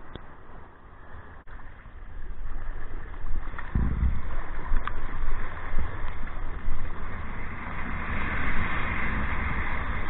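Water rushing and splashing around a kayak's bow and paddle as the boat is driven on a wave, getting louder a few seconds in with a dull thump, and a brighter rushing hiss building near the end.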